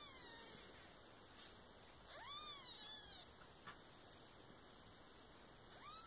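Two-day-old kitten mewing: thin, high mews that rise and then fall in pitch, one about two seconds in and another near the end, the call of a newborn kitten looking for its mother.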